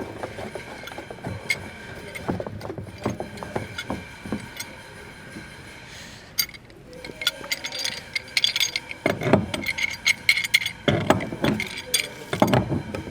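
Irregular metallic clicks, clinks and scraping as threaded pipe fittings are tightened onto a water pump with hand tools, busier in the second half.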